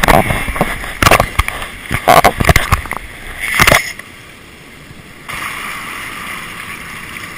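Water splashing and sloshing around a hooked goliath grouper at the surface. Loud, irregular splashes and knocks come through the first four seconds, then a steady wash of water follows.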